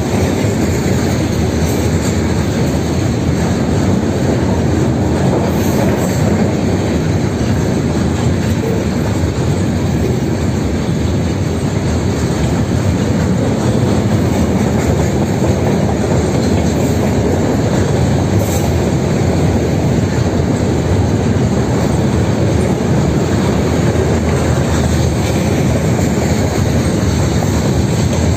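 Freight train cars rolling past close by: a loud, steady rumble of steel wheels on rail that does not let up.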